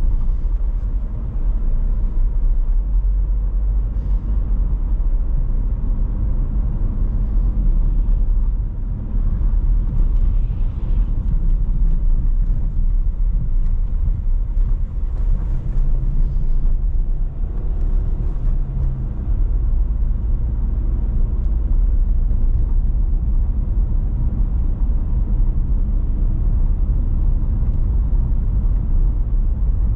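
Steady low rumble of a car driving along a highway, engine and road noise.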